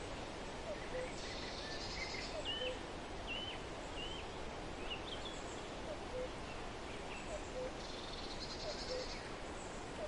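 Flowing river water with birdsong: a steady rush under a run of short, hooked chirps, two buzzy trills about a second long, and short low notes every second or two.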